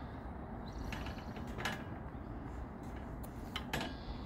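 Hands gripping and swinging along playground metal monkey bars: several sharp clicks and knocks from the bars, over a steady low rumble.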